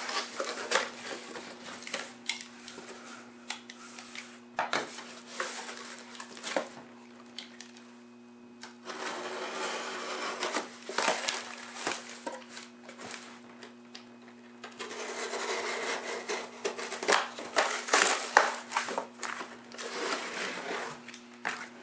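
Cardboard packing box being opened and unpacked by hand: a utility knife cutting through the tape, flaps folded back and a boxed instrument case scraped and lifted out, with many short knocks and clicks and two longer stretches of cardboard scraping and rustling.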